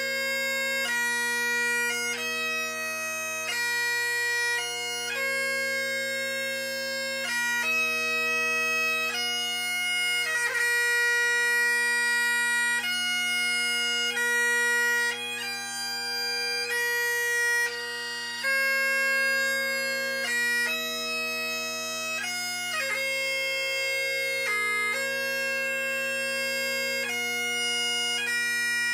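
Solo Great Highland bagpipe playing a slow piobaireachd lament: the drones hold a steady low chord under the chanter's long held melody notes, which change every second or two, each change broken by quick grace-note flicks.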